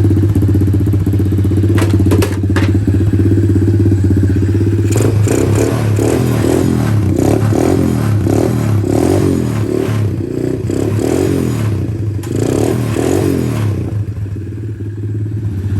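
A 110cc four-wheeler's small engine running just after its first start following a new carburetor. It runs steadily at first and is then revved up and down over and over through the middle seconds. There are a couple of sharp clicks about two seconds in.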